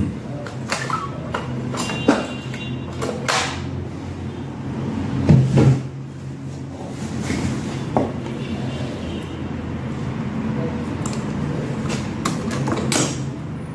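Small clicks, knocks and rustles of hands handling small electrical parts and wires on a workbench, with one louder bump about five seconds in. A steady low hum runs throughout.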